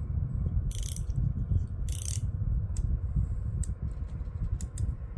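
KastKing Centron 4000 spinning reel being worked by hand, its bail arm flipped over: two sharp clicks about one and two seconds in, then several lighter ticks, over a low handling rumble.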